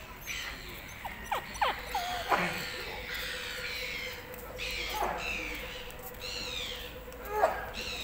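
Shih Tzu whimpering in short, high whines that slide up and down, several times over, with the loudest near the end.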